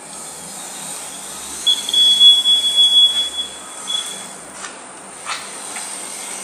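A self-balancing scooter's max-speed buzzer sounds one steady high beep lasting about two seconds, the warning that the scooter has reached its top speed. A couple of short clicks follow later.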